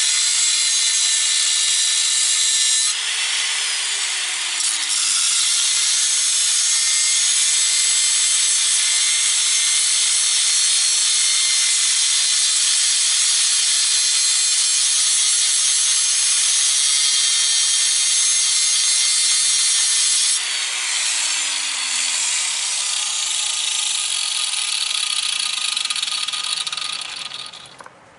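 Electric grinder with a cutting wheel running under load and cutting, its motor whine steady apart from a brief dip about three seconds in. The motor winds down about two-thirds of the way through, and the cutting noise stops shortly before the end. The owner thinks the wheel sounds a little different from usual.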